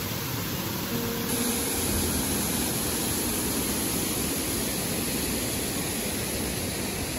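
Steady rushing of a waterfall pouring into a pool and of fast-flowing river water.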